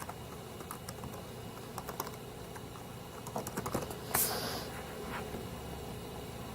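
Typing on a MacBook Pro laptop keyboard: scattered soft key clicks, with a quick run of keystrokes about three and a half seconds in, followed by a brief rustle.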